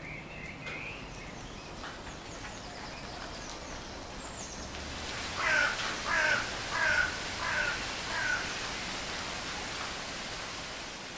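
A crow cawing five times in a row, harsh calls about two thirds of a second apart, with small songbirds chirping faintly before it. A steady rushing noise, like wind in the trees, swells behind the calls.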